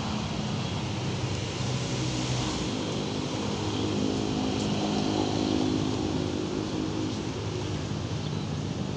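Road traffic of motor scooters running and idling close by, with a steady engine hum that grows louder about four seconds in and eases off toward the end.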